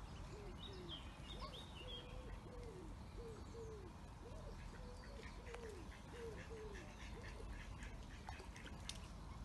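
Mallard hen giving a series of short, soft quacks, about two a second, that stop about seven seconds in. Faint high peeps from her ducklings sound about a second in.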